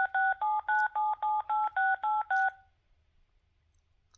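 Telephone touch-tone (DTMF) dialing: a quick, even run of about a dozen two-note keypad beeps, about five a second, stopping about two and a half seconds in as a phone number is dialed.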